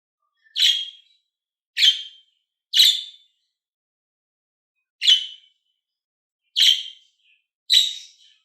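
A bird giving six short, sharp chirps at uneven intervals, each lasting about a third of a second and fading quickly, with a longer gap near the middle.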